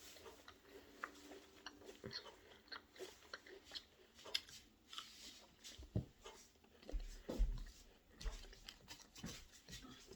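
A person chewing and eating ham with pears, with many small irregular clicks and a few soft thumps partway through.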